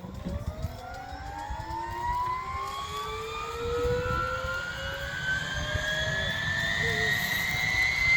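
Bell UH-1D Huey's Lycoming T53 turboshaft spooling up during engine start: a whine that climbs steadily in pitch and grows louder, over a low rumble.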